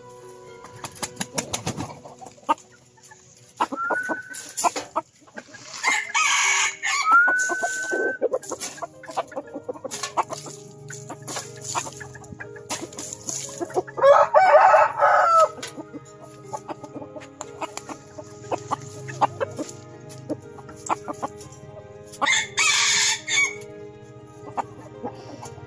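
Rooster calling: short rising clucks and a loud, harsh crow about fourteen seconds in, with two more harsh calls about six and twenty-three seconds in.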